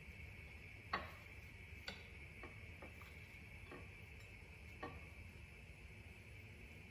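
About six light clicks or taps spread over four seconds, the first, about a second in, the loudest, over a faint steady high hiss.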